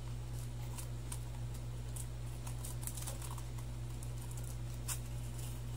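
Scattered light clicks and ticks of a small plastic bottle of citric acid crystals being handled and tipped, over a steady low hum.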